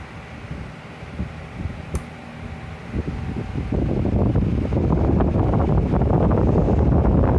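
Electric fan running, with a sharp click about two seconds in; a little later its air rushes much louder, buffeting the microphone.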